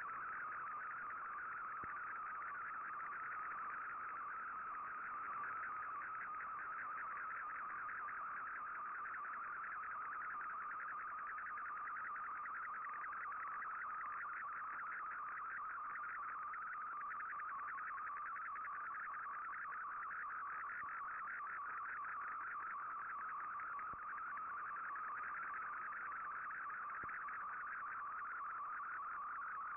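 Digital picture-mode data signal from the Shortwave Radiogram broadcast on 15770 kHz, played through an Icom IC-R8600 shortwave receiver: a steady, rapidly warbling whistle as Fldigi decodes an MFSK image line by line.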